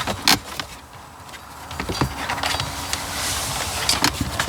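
Light plastic knocks, clicks and rubbing as a car's instrument cluster is handled and flipped over in the dash opening.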